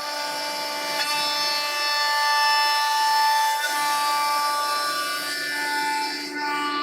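Nesting CNC router spindle whining at high speed as the bit cuts through a wood board, a steady high-pitched tone that starts abruptly and shifts slightly in pitch as the cut goes on.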